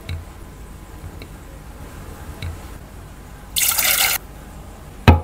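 Cooked prawns being set into a serving bowl with a few soft wet taps, then a spatula scraping a load of coated prawns and grated coconut off into the bowl in one short wet scrape about three and a half seconds in. A sharp knock, the loudest sound, comes just before the end.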